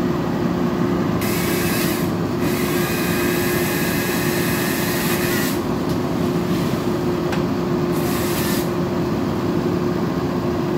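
A utility bucket truck running steadily with a constant hum. Several spells of high hissing noise come over it, the longest about three seconds, starting and stopping abruptly.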